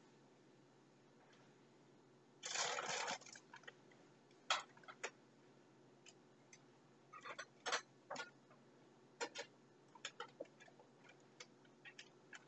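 Clicks and taps of kitchen utensils and containers being handled on a counter. About two and a half seconds in there is a short burst of scraping or rustling, under a second long.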